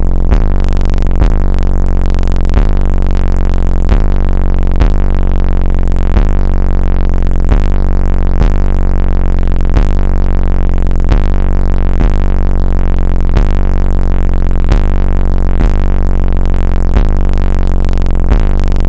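A slowed, bass-heavy electronic track played very loud through a car audio system with Fi Audio SP4 15-inch subwoofers, its deepest notes around 22 Hz. A heavy beat lands about every 0.7 seconds.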